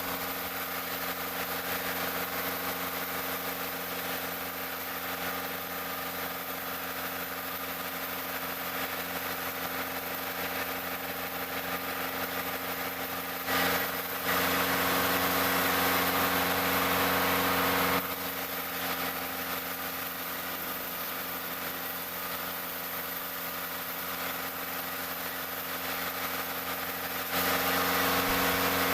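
Sawmill machinery engine running at a steady speed, holding one constant pitch. Its level jumps up abruptly for a few seconds about halfway through and again near the end.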